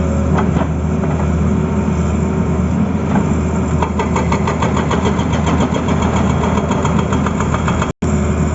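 Tata Hitachi excavator's diesel engine running steadily, with a quick run of light clicks or rattles partway through. The sound cuts out for an instant near the end.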